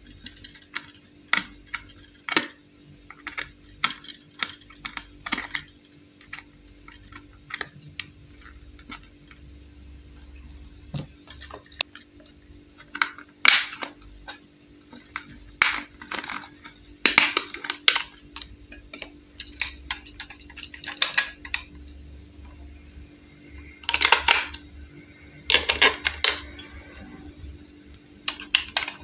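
Irregular clicks, taps and rattles of a hard plastic toy appliance being handled while its screwed battery cover is worked loose and opened. There are a couple of louder rattles a little before the end, over a faint steady hum.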